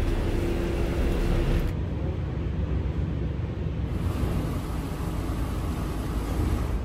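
Low, steady rumble of a passenger-cargo ferry under way, heard inside the ship. The sound changes abruptly about two seconds in and again about four seconds in.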